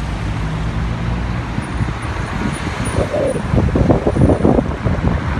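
Car engine hum and road traffic heard from inside a car in slow city traffic. From about three seconds in, gusty wind buffets the phone's microphone.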